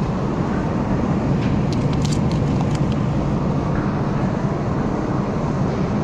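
Steady low hum and rush of a supermarket's open refrigerated display cases and ventilation. About two seconds in comes a brief run of crisp crinkles from a plastic-wrapped hot dog package being handled.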